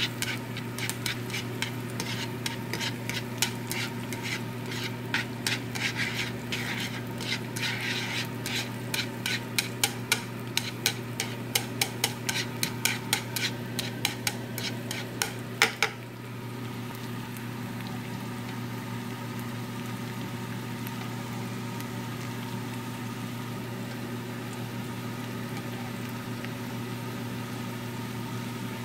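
Wooden chopsticks tapping and scraping quickly against a ceramic-coated frying pan as egg and onion are stirred over a light sizzle. The taps stop abruptly about halfway through, leaving the pan sizzling over a steady hum.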